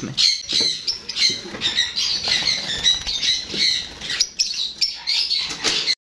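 A flock of small pet birds, lovebirds among them, chattering and squawking continuously in a dense overlapping mix of high chirps and harsh calls.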